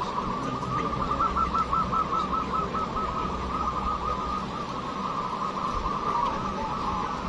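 Chorus of many zebra doves (perkutut) cooing at once, a steady stream of rapid, overlapping rolling coos.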